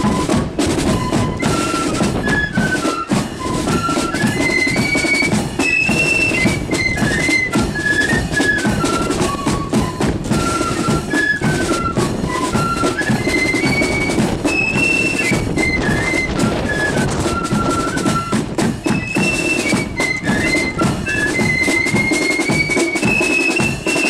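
Marching flute band playing a tune: many flutes carry the melody in unison over driving drums.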